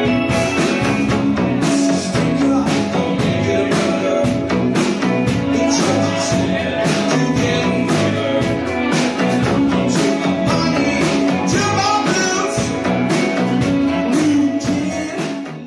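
Indie pop band playing with drums, electric guitars and a singing voice; the music fades out near the end.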